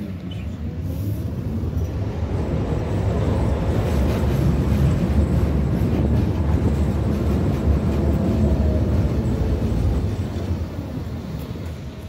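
Tatra T6B5SU tram running on the rails: a steady low wheel-and-track rumble with a faint motor whine that rises and then falls. The rumble dies down near the end as the tram slows.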